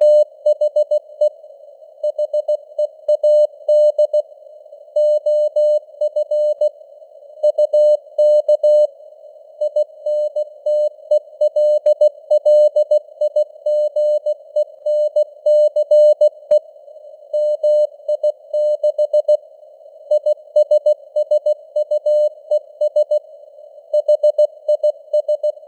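Morse code sent at 16 words per minute: a single mid-pitched sidetone keyed on and off in dots and dashes, over a narrow band of hiss that imitates radio noise, with the signal strength fading up and down (QSB).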